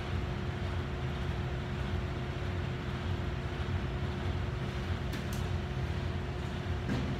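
Steady low mechanical hum with a faint constant tone, the running noise of the room's machinery. A couple of light clicks sound about five seconds in and again near the end.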